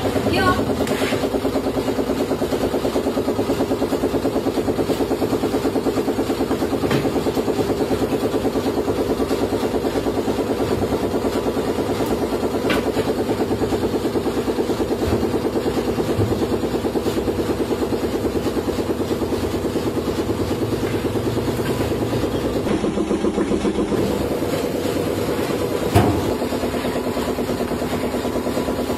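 A machine motor running with a steady, engine-like drone that pulses quickly. A few faint clicks sound through it, and there is one sharp knock near the end.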